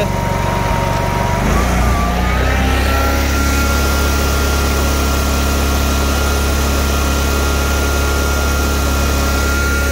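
Dixie Chopper Classic 3372's 33-horsepower Generac engine being throttled up from idle. Its pitch rises over about a second and a half, starting a little over a second in, then holds steady at the higher speed, running smoothly.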